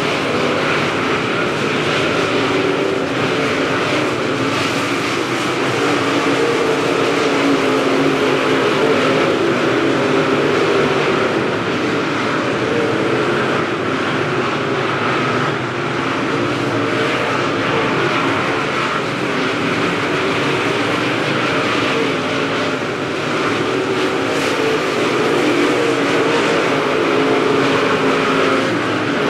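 Dirt late model race cars' V8 engines running hard at racing speed on the dirt oval, a steady, loud engine din that never lets up.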